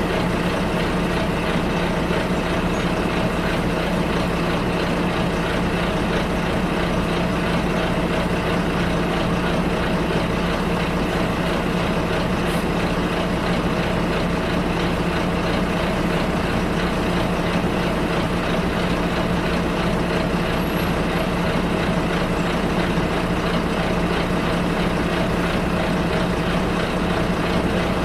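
Bus running steadily on the road, its engine's low hum heard through the passenger cabin over continuous road noise.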